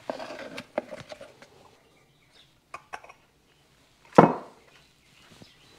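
Hand tools and parts being handled: a burst of rattling clatter, two sharp clicks, then one hard knock about four seconds in, the loudest sound.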